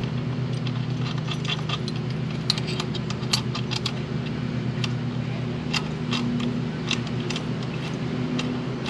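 Light metal clinks and taps, scattered irregularly, as a hex key and a small metal bracket are handled and a bolt is turned in, over a steady low hum.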